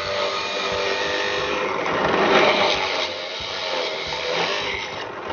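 Drill press running and boring a flat-bottomed 7/8-inch hole into a pine board. A steady motor hum with the cutting noise of the bit in the wood, which grows louder about two seconds in.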